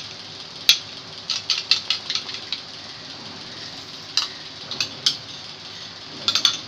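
A metal spoon clicking and scraping against a stainless-steel pot as yogurt is spooned into the curry, a dozen or so short sharp taps in small clusters, over a steady hiss from the mutton curry boiling in the pot.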